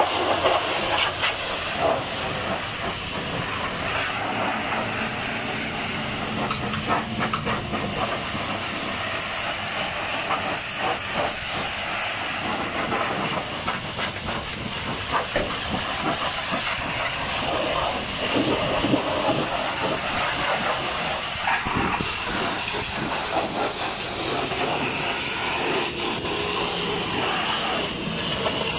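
High-pressure washer jet blasting water against a tipper trailer's tyres, wheels and undercarriage: a steady hiss with irregular spattering as the jet moves across metal and rubber.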